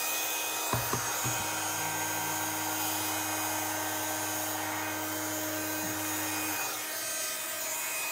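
Embossing heat gun running steadily on its hot setting, its fan blowing with a low hum. The gun is warming up to melt embossing powder. A few light knocks come about a second in, and the hum drops away about six and a half seconds in while the blowing goes on.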